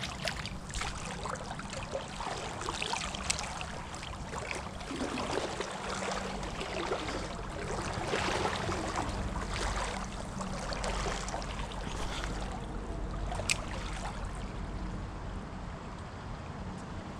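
Shallow creek water running and sloshing, with irregular splashes as someone wades through it; the splashing thins out toward the end. One sharp click about three-quarters of the way through.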